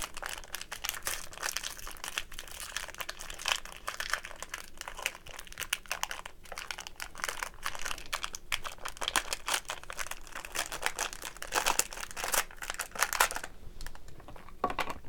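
Plastic-foil trading card pack wrapper being handled and opened by hand: a steady stream of crinkling and crackling, thinning out near the end.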